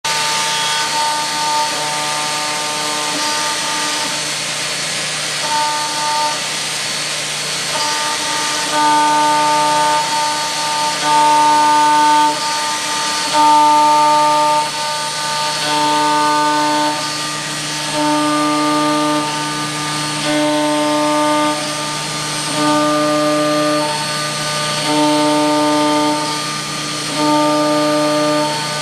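Vertical machining centre milling a refractory mould: a steady spindle hum and whine over a hiss. A louder, pitched tone rises every couple of seconds as the cutter bites into the refractory on each pass, regular from about a third of the way in.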